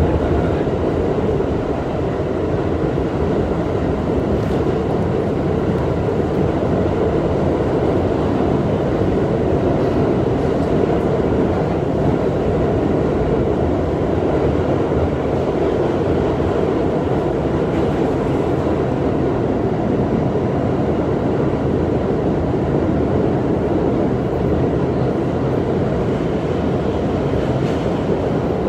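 Steady running noise of a New York City subway car in motion, heard from inside the car.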